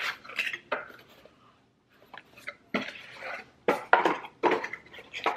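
Cardboard packaging being opened and handled: a box lid pulled open and a product box taken out and turned over, giving irregular scrapes, rustles and light knocks, with a short pause about halfway.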